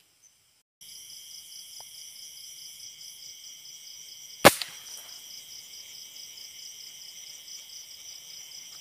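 A single shot from a Tauros A2K dual-propellant airgun about halfway through: one sharp crack with a brief ring-off. Behind it runs a steady, evenly pulsing high-pitched chorus of night insects.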